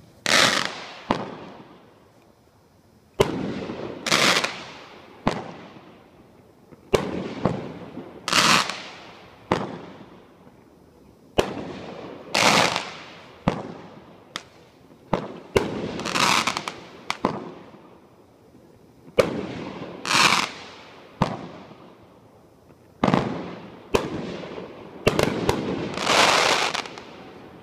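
A Great Grizzly Noisy Boyz consumer fireworks cake firing shot after shot. Each shell goes up with a launch thump and bursts overhead with a bang about a second later, about twenty reports in all, in volleys with short gaps.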